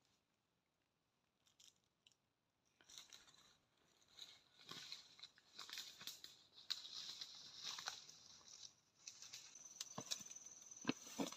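Dry leaves and twigs crackling and crunching irregularly as someone handles forest undergrowth, starting after about three near-silent seconds. Near the end a thin, steady high-pitched whine comes in, with a few footsteps.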